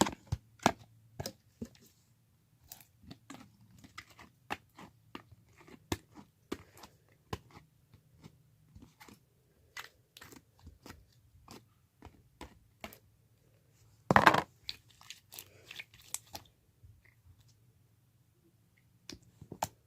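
Homemade light blue slime being mixed and squished by hand with added dark blue slime: a string of irregular sticky clicks and pops, with one longer, louder squelch about fourteen seconds in.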